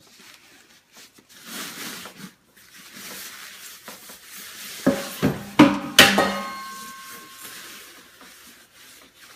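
Stainless steel coffee carafe dropped, hitting and clattering four times in quick succession, then ringing briefly.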